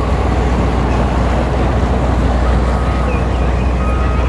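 Yamaha outboard motor running at low speed, a steady rumble as a center-console boat idles past close by.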